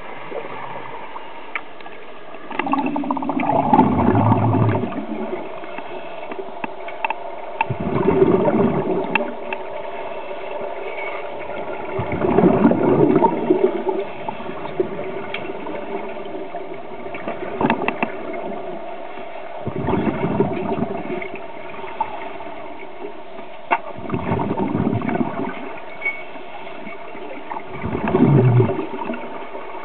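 Scuba regulator exhaust bubbles heard underwater: a burst of bubbling about every four seconds as a diver breathes out, over a steady hum, with scattered small clicks.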